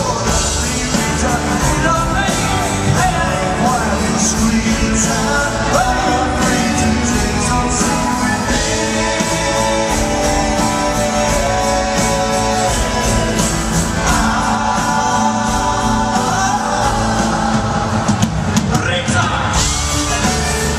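Live rock band performance: a male lead singer with harmony vocals over strummed acoustic guitar, electric guitar and bass.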